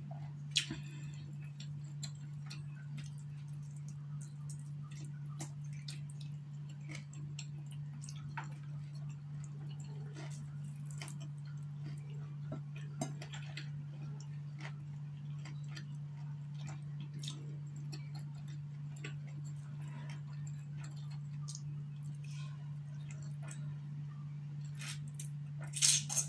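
Close-up eating sounds of chicken wings picked apart by hand: scattered small clicks, lip smacks and chewing, with a louder sucking smack near the end. A steady low hum runs underneath.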